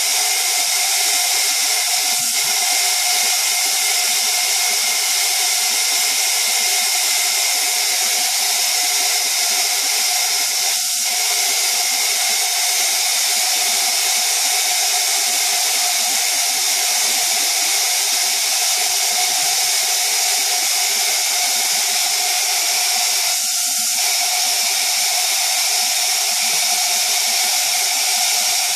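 Steady high-pitched machine whine over a loud hiss, holding level with no change in pitch: industrial machinery running at a CNC router.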